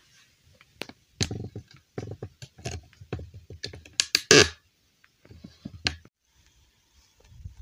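Irregular clicks and knocks, like small hard objects being handled. They are busiest about a second in, and loudest in a short clattery run about four seconds in, then sparse near the end.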